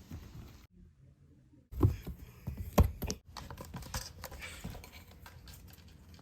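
A run of light, irregular clicks and taps, with a short quiet gap about a second in and the loudest knocks around two to three seconds in.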